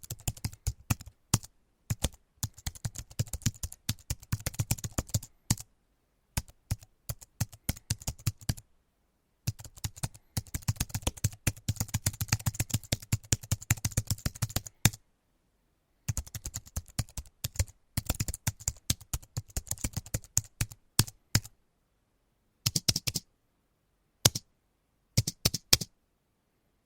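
Typing on a computer keyboard: quick runs of key clicks broken by short pauses, with a few single keystrokes near the end.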